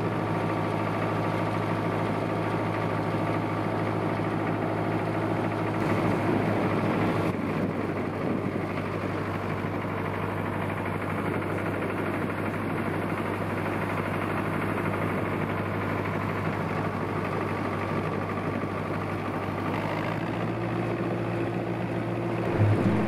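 Vintage tractor engine running steadily while driving, heard from the seat. The even engine note turns rougher and less clear about six seconds in, then settles back to a steady note near the end.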